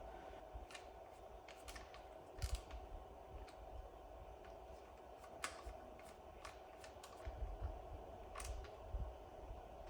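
Hand tools and parts of a Torqeedo Travel 1103C outboard being handled during reassembly: scattered small clicks and light knocks, with a few soft thuds, over a faint steady hum.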